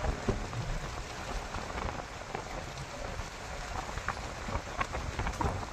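Safari jeep driving on a gravel track: a steady crackle of tyres on loose gravel with scattered small clicks, over a low rumble of the vehicle and wind on the microphone.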